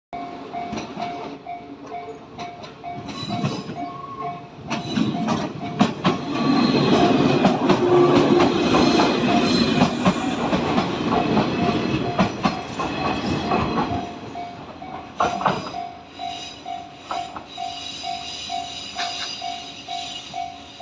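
A Japanese level-crossing alarm rings steadily at about two beats a second while a JR 115 series electric train runs through the crossing from about five to fourteen seconds in, its wheels clacking over the rail joints. The alarm keeps ringing after the train has passed.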